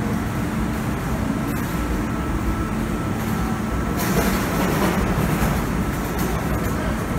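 Steady hum of a standing electric train's onboard equipment at a station platform, with a louder rushing noise rising about four seconds in and fading again.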